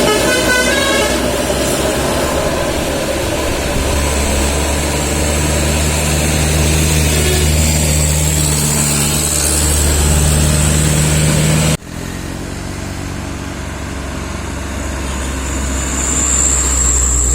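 Large bus diesel engine running with a steady low hum, just after a multi-tone telolet horn dies away in the first second. The sound breaks off abruptly for an instant about twelve seconds in, then the engine sound resumes and slowly grows louder toward the end.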